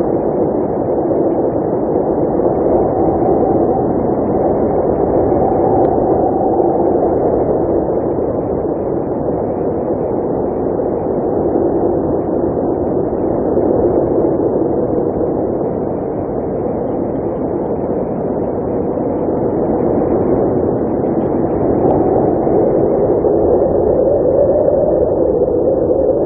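Blizzard wind blowing steadily, with a hollow tone that slowly rises and falls.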